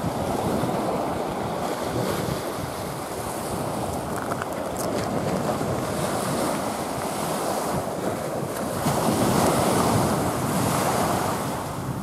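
Small sea waves breaking and washing up a sandy, shell-strewn beach in a continuous wash, with wind on the microphone; the surf swells loudest about nine seconds in.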